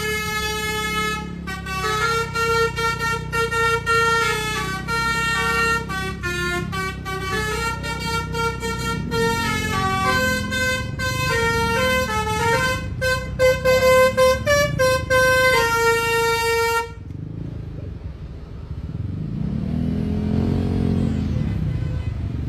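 Telolet bus horn, a multi-tone air horn, playing a fast tune of changing notes, then cutting off suddenly near the end. After it stops, the vehicle's engine noise remains, rising and falling in pitch.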